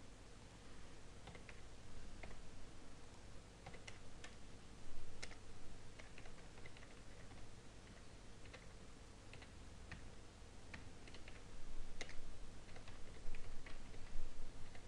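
Computer keyboard typing: single key taps in short irregular runs, more frequent in the last few seconds, over a faint low steady hum.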